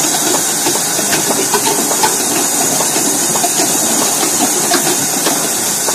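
Palace bottle unscrambler running: a steady mechanical hiss with frequent light, irregular clicks as plastic bottles are fed and knock along the belt conveyor.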